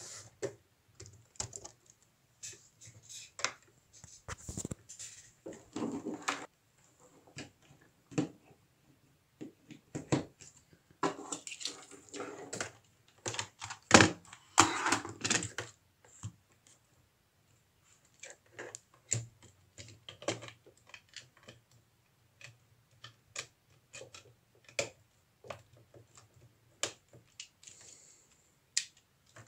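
Irregular plastic clicks and rattles of LEGO Technic parts being handled, busiest about halfway through, where one sharp click stands out as a hand works the Power Functions battery box. A faint steady low hum sits underneath.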